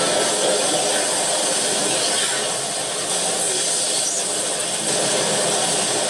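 Anime sound effects of surging seawater: a steady, rushing hiss.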